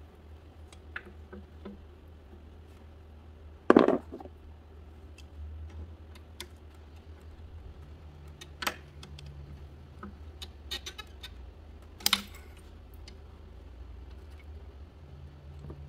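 Scattered clicks and clunks of hand tools and engine parts being handled in an engine bay, with two sharper knocks, about four seconds in and about twelve seconds in, over a steady low hum.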